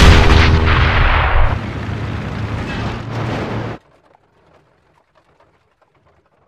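Sound-effect explosion as a WWI biplane is hit by anti-aircraft fire, over the drone of the plane's engine. The blast dies down into a lower rush of noise that cuts off suddenly about four seconds in.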